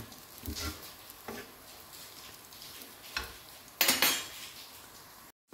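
Metal tongs clicking and scraping against a flat griddle as French toast slices are moved, a few light taps and one louder, longer scrape about four seconds in, over a faint frying sizzle. The sound cuts off abruptly just before the end.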